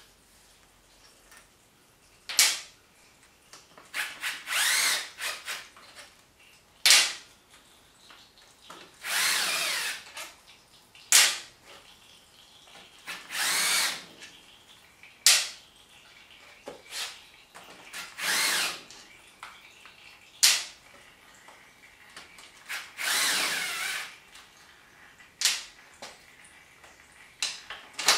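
Power drill spinning in five short bursts of about a second, its pitch rising and falling within each, with a single sharp click between bursts: bolts being run out during an engine teardown.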